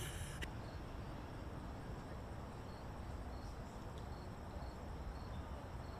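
Faint outdoor background with an insect chirping: short high chirps repeating at an even pace, a little under twice a second, over a low steady rumble.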